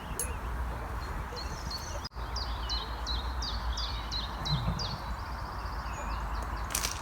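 A songbird singing a run of repeated, downward-sliding high notes, about three a second, ending in a quick trill, over a steady low rumble of outdoor background noise. There is a brief break in the sound about two seconds in.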